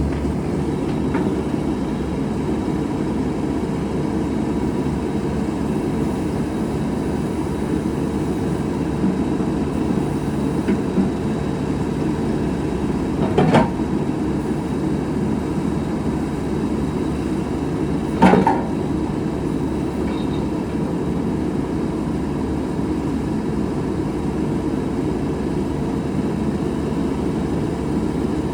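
JCB 3CX14 backhoe loader's diesel engine running steadily, with two short clunks, one about halfway through and another a few seconds later.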